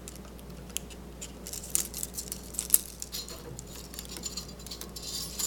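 Scattered light clicks and ticks of 8mm film being pulled out of an Elmo projector's gate and off its sprocket wheels, the gate door and film rattling against the metal mechanism.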